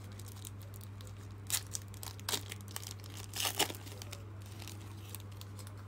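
Foil wrapper of a Panini Mosaic trading-card pack being slowly torn open, crinkling, with a few sharper crackles scattered through. A steady low hum sits underneath.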